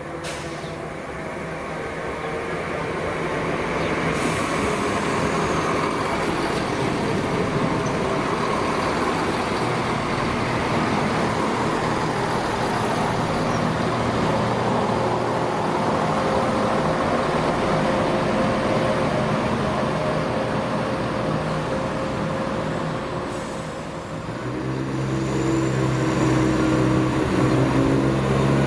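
Diesel train running in the station, a steady engine drone over the rumble of the train. Near the end the sound dips briefly, then the engine note comes back louder.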